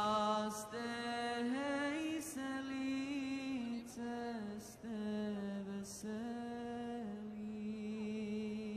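A single voice singing a slow, unaccompanied chant in long held notes that slide from one pitch to the next, in phrases of one to two seconds with short breaks between them.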